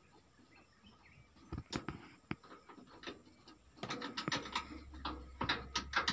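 Scattered metallic clicks, taps and knocks of hand tools on the truck's steering and hydraulic parts, sparse at first and coming thick and fast from about four seconds in, when a low hum also starts.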